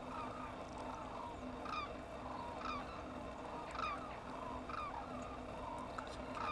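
A flock of hooded cranes calling: loud calls about once a second over a constant chatter of many birds.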